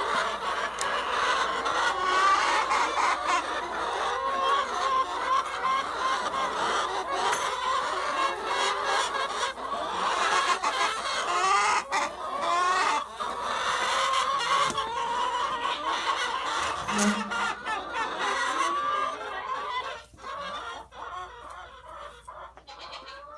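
A flock of chickens clucking, with many calls overlapping into a busy din that thins out and quiets near the end.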